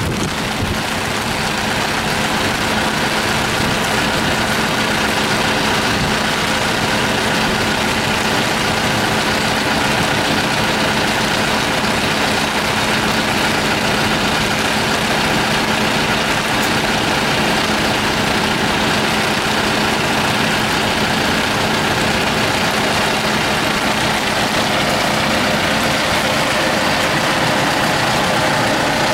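John Deere 5125ML tractor's diesel engine idling steadily, heard close up from behind the tractor.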